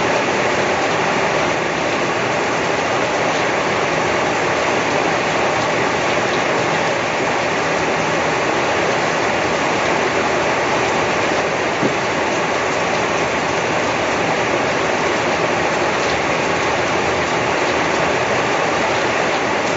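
Steady rain falling, a continuous even noise.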